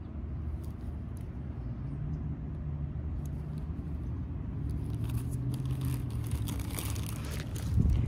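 A steady low rumble, like a motor vehicle's engine, with rustling and crackling that grows over the last few seconds and a sharper crunch near the end.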